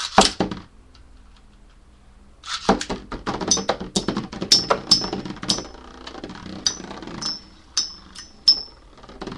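Two metal Beyblade spinning tops launched into a plastic stadium, with a short clatter at the launch. From about two and a half seconds in they collide again and again: a rapid rattling with sharp metallic clinks that ring briefly.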